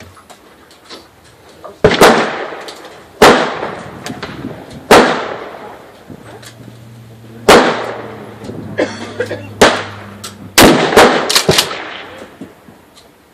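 Remington 870 pump-action shotgun firing 00 buckshot: six sharp blasts spaced one to two and a half seconds apart, each trailing off in a long echo.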